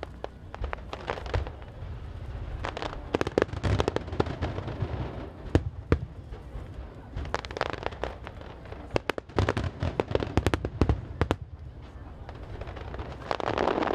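Fireworks display: aerial shells bursting in quick clusters of sharp bangs and crackles over a low rumble, with a denser swell of noise near the end.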